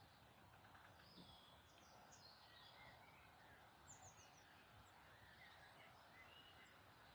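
Faint birdsong: several small birds chirping and whistling at a distance over a quiet, steady outdoor background hiss.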